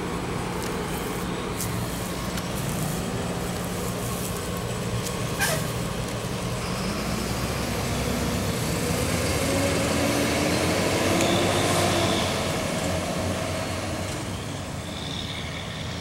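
Road traffic passing at a busy intersection: a steady rumble of vehicles, with one heavy vehicle's engine rising in pitch as it goes by, loudest about eleven seconds in. A brief falling squeal is heard about five seconds in.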